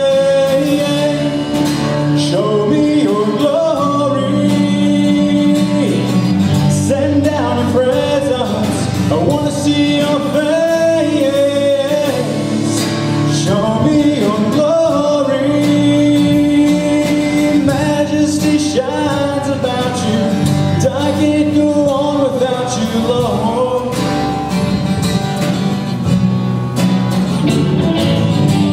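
A man singing a gospel song to his own strummed acoustic guitar, with drums played along behind.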